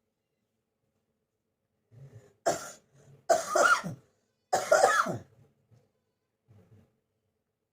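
A person with a bad cough from a cold coughing hard: three loud coughs in quick succession, starting about two and a half seconds in.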